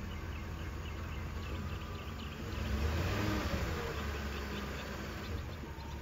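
Outdoor ambience: a steady low hum with faint insect chirping, and a rushing sound that swells about two and a half seconds in, then slowly fades.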